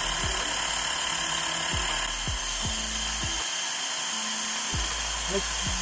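Xiaomi Mi portable electric air compressor running steadily as it inflates a bicycle tyre, with the pressure climbing past about 10 psi.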